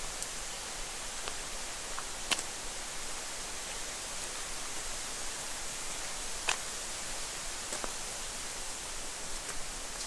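Steady hiss of temperate rainforest ambience with a few sharp clicks. The two clearest clicks come about two seconds in and just past the middle, and fainter ones follow near the end.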